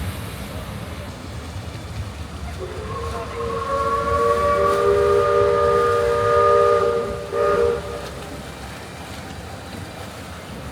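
Steam locomotive chime whistle blowing one long chord of several tones for about five seconds, with a brief break near its end, over the low rumble of the train rolling along the track. The whistle sounds as the train comes into the station.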